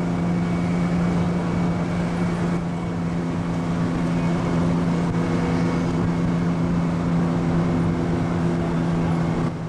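Fire engine's diesel engine running steadily as the truck drives slowly, heard from on top of the truck, with an even low drone and no siren.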